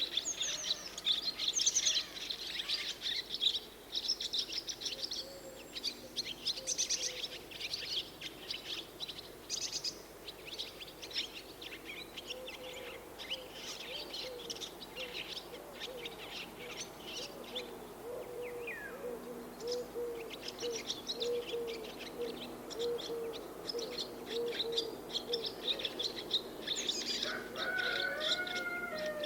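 Swallows twittering in a dense, busy stream of high chirps. Through the middle stretch a lower bird call repeats in quick, even notes underneath, and near the end another bird gives a clearer, gliding call.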